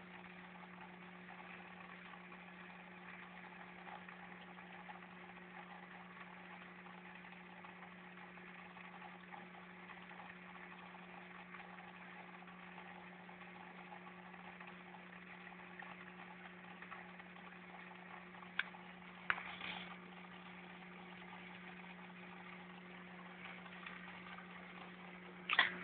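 Faint, steady hum of a small motor over a low hiss. About three-quarters of the way through come a click and a short clatter, and near the end a louder knock.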